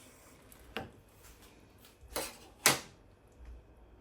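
A few knocks and clinks of kitchenware, pots or utensils being handled, the loudest about two and a half seconds in.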